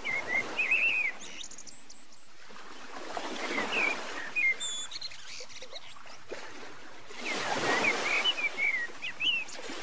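Songbirds chirping in short bursts near the start, around four seconds in and again toward the end, over a steady rushing noise that swells twice.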